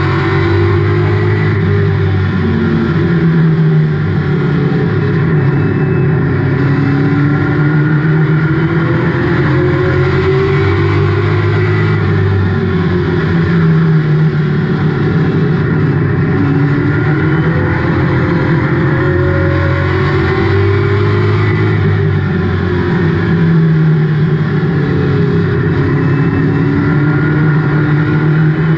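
Race car engine running hard at racing speed, heard from inside the cockpit, its pitch rising and falling again and again as the car laps the oval.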